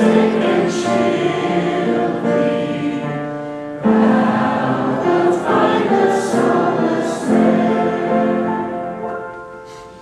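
A group of voices singing a hymn together in held notes. A new phrase comes in about four seconds in, and the singing fades away near the end.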